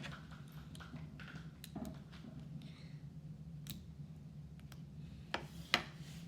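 Plastic LEGO bricks being handled and pressed together: scattered small clicks and rattles, with two sharper clicks near the end.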